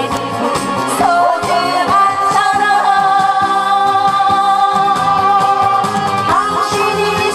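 A man and a woman singing a duet into microphones over amplified backing music with a steady beat, with a long held note through the middle.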